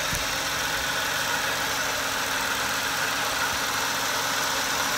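Peugeot 107's engine idling steadily, its auxiliary drive belt just tightened and running without the squeak it made while slightly loose.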